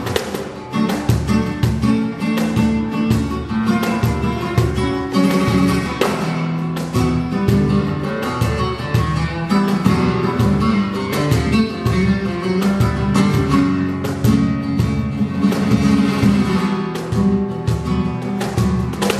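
Flamenco guitar played live: quick plucked runs mixed with sharp, rhythmic strummed strokes, with a cajón beating alongside.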